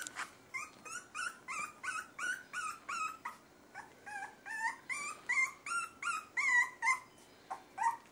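Miniature schnauzer puppy about three and a half weeks old whining: a rapid run of short, high cries, about three a second, that stops briefly near the end and then gives one more.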